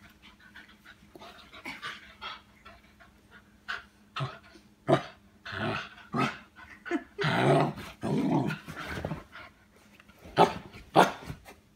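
Small dog play-growling in irregular bursts while wrestling, loudest about halfway through, with a couple of short sharp sounds near the end.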